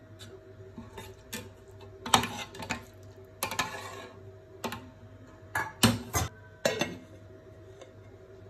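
A metal spoon stirring and scraping in an aluminium pot of milky vermicelli, with several sharp clinks and knocks of metal on metal, the loudest a few seconds in and a cluster near the end.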